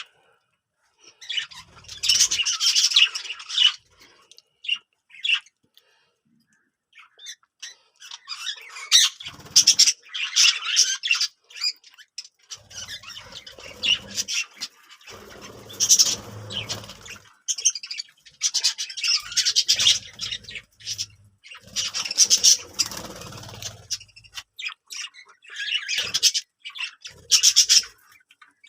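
Budgerigars chattering and squawking in bursts of a few seconds, with short pauses between.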